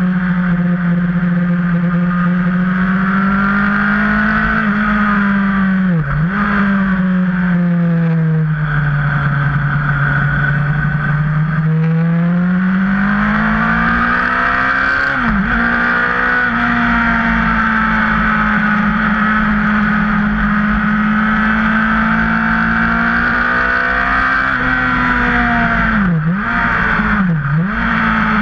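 Yamaha sportbike engine heard from onboard while riding at speed on a race track. The engine note rises and falls through corners and straights, with quick sharp dips and recoveries at gear changes about six seconds in, about fifteen seconds in, and twice near the end, over steady low wind rumble.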